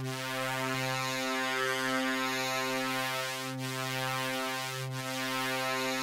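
A Eurorack wavetable oscillator (1V/Oct The Centre) holds one low synth note with a rich, buzzy stack of overtones. Its timbre shifts slowly as different overtones swell and fade.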